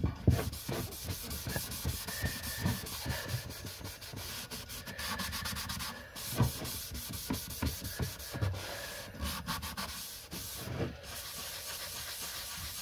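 Foam sponge rubbing a finish over a wooden marquetry box lid in repeated quick strokes, a steady scrubbing friction sound.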